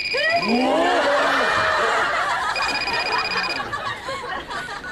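Audience laughing loudly, many voices together. Under the laughter, an electronic mobile-phone ring tone sounds twice, about a second each time: once at the start and again about two and a half seconds in.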